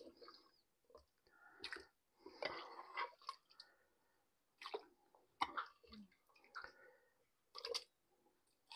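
Faint, scattered clicks and soft wet squishes of a spoon lifting tender cooked mutton pieces and setting them in the bottom of a pot.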